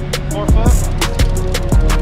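Background music with a steady beat: deep kick drums and quick hi-hat ticks.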